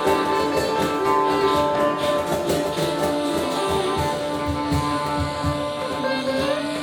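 Live instrumental ensemble music: plucked strings over drums, with long held melody notes.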